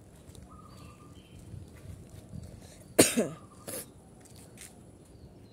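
A person coughs sharply about three seconds in, followed by a second, shorter cough.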